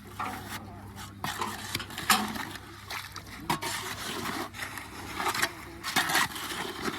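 A shovel scraping and stirring through wet concrete mix, a run of irregular scrapes of metal against gritty concrete.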